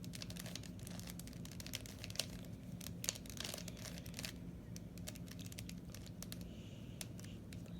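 Plastic 3x3 Rubik's Cube being turned by hand: quick runs of small clicks and clatter from the layers snapping round, thick for the first half and more scattered later, over a steady low hum.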